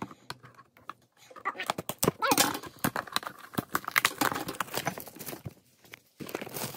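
Trading-card packaging being handled: irregular rustling, crinkling and clicking of cardboard and plastic wrap, with short pauses about a second in and near the end.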